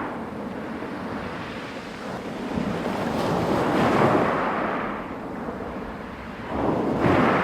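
Sea waves breaking on a pebble beach, the water surging in swells: one builds to a peak about halfway through, and another breaks sharply near the end.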